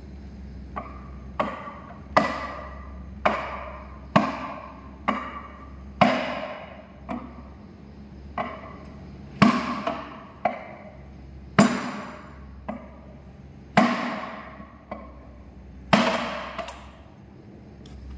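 Sledgehammer blows against the pistons of a six-cylinder Cummins diesel engine block, about one strike a second, each a sharp metallic knock that rings briefly, some harder than others. The blows are driving pistons that are stuck in their bores up and out of the cylinders.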